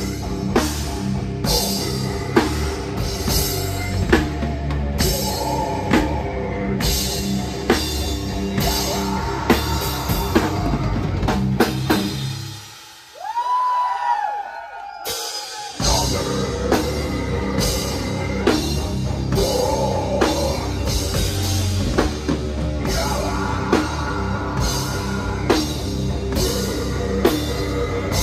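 Metal band playing live at full volume: distorted guitars, bass and drums with regular cymbal crashes. About twelve seconds in the band drops out for a few seconds, leaving one high note sliding in pitch, then the full band crashes back in.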